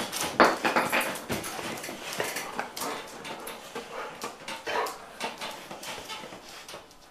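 Golden retriever mouthing and shaking a cloth in play: rustling, flapping fabric with the dog's own breathing and small play noises, in quick, uneven bursts that fade toward the end.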